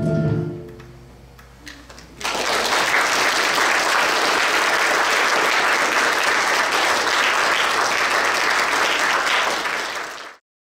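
The final chord of English handbells rings and dies away, then after a short pause an audience claps steadily for about eight seconds, cutting off suddenly near the end.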